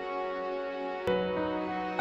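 Slow, sad-sounding background music of held chords, moving to a new chord about a second in.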